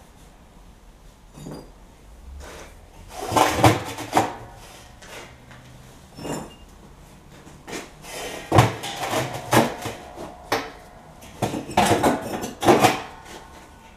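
Firebricks being set into the bottom of a steel oil drum: clunks and clatter of brick on brick and against the drum, in three bursts, the drum ringing briefly after some knocks.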